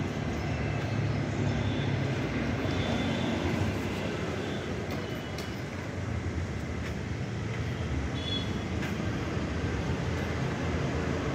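Steady low rumble of a vehicle engine running, with a few brief faint high tones and light clicks over it.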